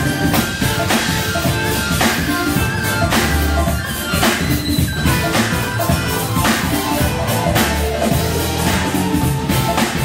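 Live band playing: a drum kit keeping a steady beat under electric guitar, with Hammond B3 organ, bass and keyboards in the ensemble.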